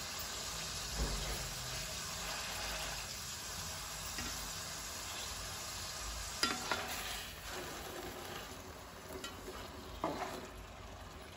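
Boneless fish fillets sizzling steadily in oil in a shallow aluminium pan over a low flame, with a few light knocks of a slotted spatula against the pan as the pieces are moved, about six and ten seconds in.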